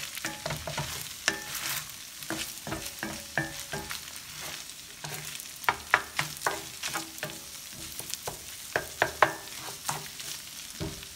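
Fried rice sizzling in an enamelled cast-iron skillet while a wooden spatula stirs it, with frequent irregular scrapes and knocks of the spatula against the pan over a steady hiss.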